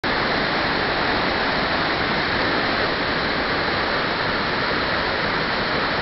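Waterfall pouring over a rock ledge into a pool, a steady, unbroken rush of water.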